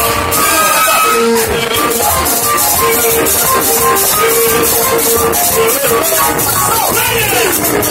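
Live band music with a steady beat: drums and shakers, guitar, and singers at microphones, loud.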